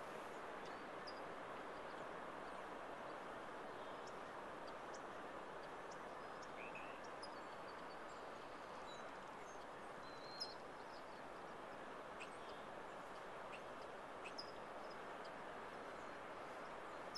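Steady, faint wash of distant ocean surf, with small birds chirping now and then and one sharp tick about ten seconds in.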